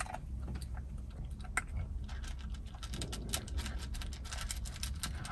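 Small maltipoo dog eating meat food and licking its lips: quick, irregular, wet smacking clicks.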